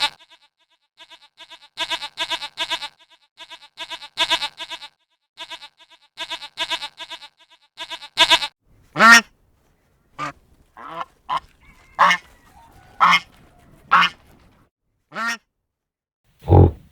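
Domestic waterfowl calling: quick runs of short quacking calls, then single louder calls about a second apart, with a lower call near the end.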